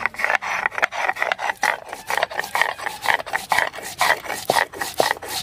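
Stone grinding slab and muller (shil-nora) rasping as radhuni seeds are ground into paste, in quick repeated strokes of stone on stone.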